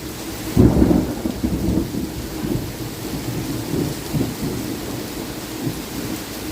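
Thunder: a loud low crack-and-rumble starts about half a second in and keeps rumbling unevenly as it fades over the next few seconds, over steady rain.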